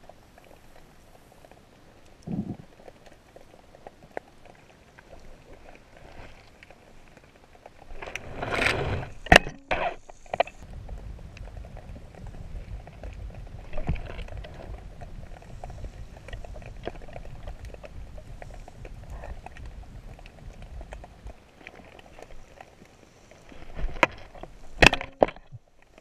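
Underwater sound around a spearfishing diver: scattered faint clicks and crackles, with a cluster of loud knocks and rustles about eight to ten seconds in and again near the end, and a low rumble between them.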